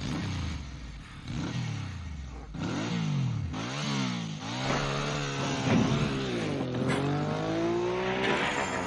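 Dune buggy engine revving hard as it accelerates, its pitch climbing and dropping several times.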